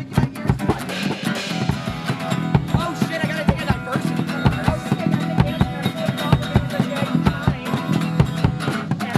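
Music with a drum kit and guitar playing, drum hits keeping a steady beat.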